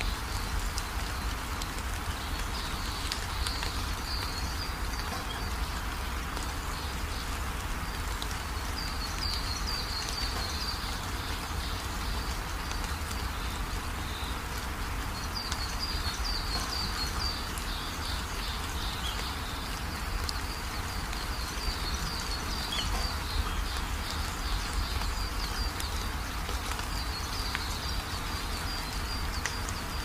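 Steady rain falling, with short runs of high chirping calls coming back every five or six seconds.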